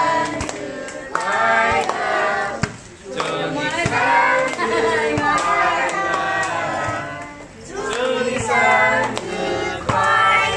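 A group of adults and children singing a birthday song together, with hand clapping along.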